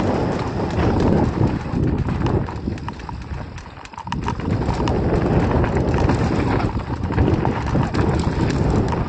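Mountain bike ridden down a rough, steep dirt trail, heard from a helmet camera: a steady low rush of wind and tyre noise with the bike rattling and clattering over the ground. It goes briefly quieter about four seconds in.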